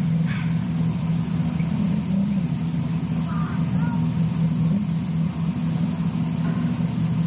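A steady low hum, like a motor running, with a few faint short high calls over it.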